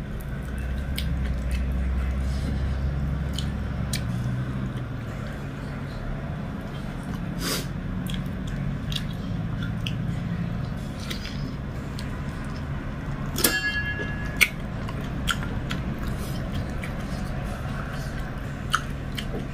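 Close-up eating sounds of someone eating by hand: soft chewing, lip smacks and small wet clicks of fingers in food, over a steady low hum. A short metallic clink about two-thirds of the way through.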